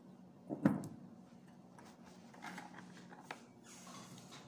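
Kitchen items being handled on a table: one sharp knock, like a bottle or spoon set down, about two-thirds of a second in, then a few faint clicks, over a faint steady low hum.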